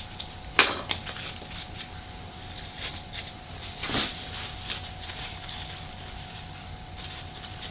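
Soft handling noises as a potted primula is gripped and shifted in its saucer and a small hand tool is set down on the table: a few light knocks and rustles, the loudest about four seconds in, over a faint steady hum.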